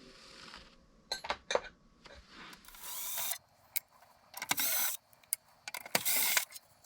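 Parts of an opened air compressor being handled and cleaned of oil: a few sharp clicks about a second in, then three short rubbing, hissy bursts of wiping, each about half a second long.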